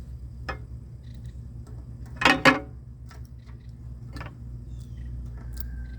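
Light clicks and clatter from handling tools, with a sharp double click about two seconds in, over a steady low hum.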